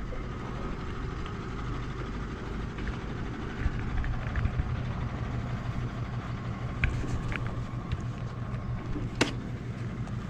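Steady low rumble of a motor vehicle's engine running, with a sharp click about nine seconds in.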